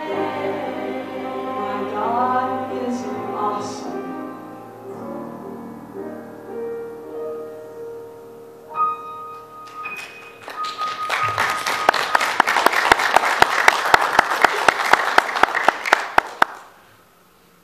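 A woman singing solo into a microphone, ending on a held note, followed by about six seconds of audience applause that stops suddenly.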